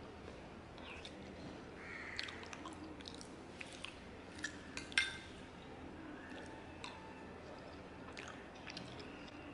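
Close-up eating sounds: chewing, with scattered small clicks and taps as a plastic spoon scoops rice from a plate; the sharpest click comes about five seconds in.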